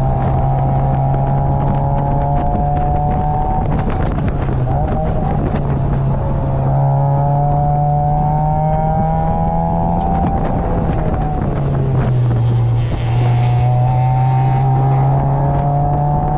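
NA8 Mazda Roadster's 1.8-litre four-cylinder engine pulling under load from inside the open cockpit. Its note climbs slowly, drops about four seconds in and again around eleven seconds, then climbs again. Wind rushes over the open top.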